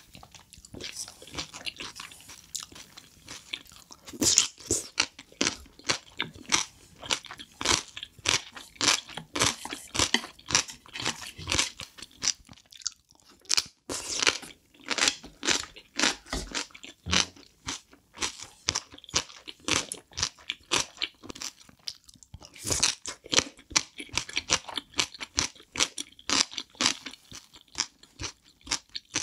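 Close-miked crunchy chewing of pickled yellow radish (danmuji) slices: a steady run of crisp crunches, with a short pause about halfway through.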